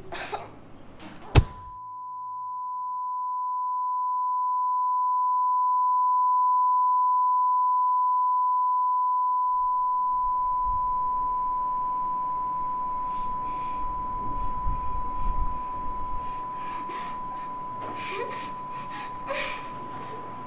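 A single sharp bang about a second in, then a steady high pure tone that swells and slowly fades: a film's ear-ringing effect after a blow or shot. From about ten seconds in, muffled low rumbling and faint sounds creep back in beneath the tone.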